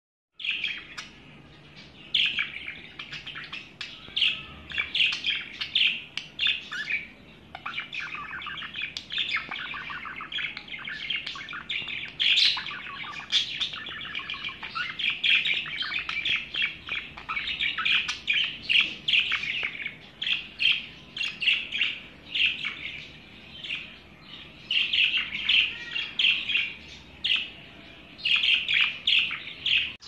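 Budgerigars chattering and warbling: a continuous stream of quick, high chirps and twittering.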